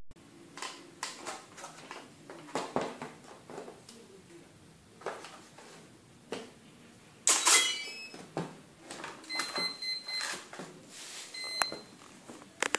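Light clicks and rustles of wires and connectors being handled. About seven seconds in, a sudden loud snap as the LiPo battery is plugged in, at once followed by a quick run of stepped electronic start-up tones. A few short steady beeps follow, typical of a Turnigy Plush speed controller sounding through the ducted-fan motor as it powers up and arms.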